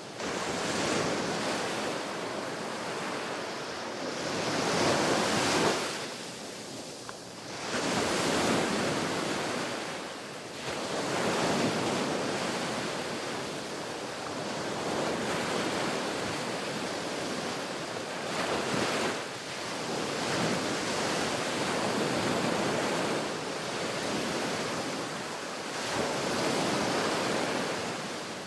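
Ocean waves breaking and washing up on a beach, surging and receding every few seconds in an unbroken wash of surf.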